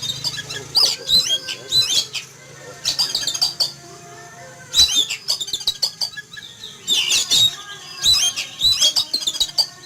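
Oriental magpie-robin (kacer) singing loudly in rapid bursts of high, quick-changing whistled and chattering phrases, about six bursts with short pauses between them.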